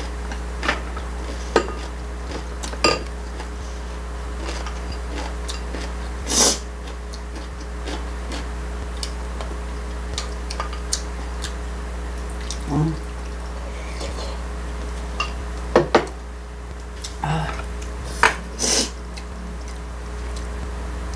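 Metal chopsticks and a spoon clinking and tapping against ceramic bowls and plates: scattered light clicks with a few louder knocks, over a steady low hum.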